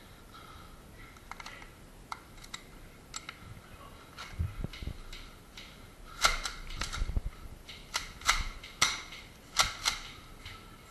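Airsoft guns firing single shots as sharp cracks: a few faint, scattered shots at first, then a run of about eight louder shots over the last four seconds or so.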